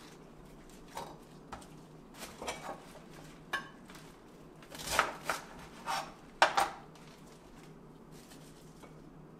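Dishes and utensils knocking and clattering on a kitchen countertop as food is handled and set out: a string of light, separate knocks, the loudest about halfway through, then quiet.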